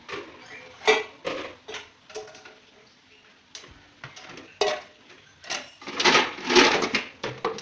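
Dishes and kitchen utensils being handled, giving irregular clinks and knocks, with a longer clatter about six seconds in.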